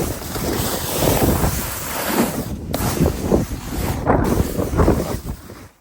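Wind rushing over the microphone while a snowboard scrapes and carves through spring slush, in repeated swelling surges. The sound drops out briefly twice and cuts off suddenly at the end.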